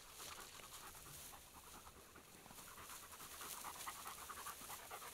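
Hunting dog panting quickly and faintly as it searches tall grass for a downed pheasant.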